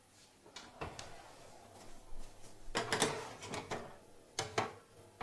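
Metal baking tray knocking and scraping as it is slid onto the oven rack, a cluster of clatters about three seconds in, followed by two sharp knocks.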